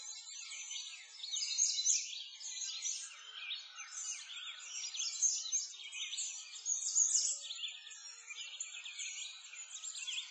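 A dense chorus of many small birds chirping continuously, high-pitched, swelling and easing in loudness every second or two.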